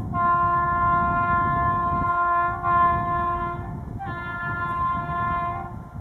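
WAP-7 electric locomotive's horn sounding long, insistent blasts as the train approaches. One is held for about three and a half seconds and changes pitch partway. After a short gap, a second blast of about two seconds cuts off near the end.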